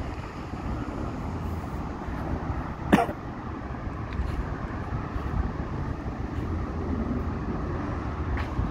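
Steady street traffic noise from cars and buses passing on a wide road, with a short sharp noise about three seconds in.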